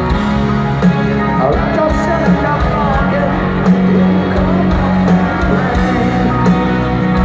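Rock band playing a piano-led power ballad live, with piano, guitar and drums heard from the arena crowd. A sung lead vocal comes in about a second and a half in and fades out a few seconds later.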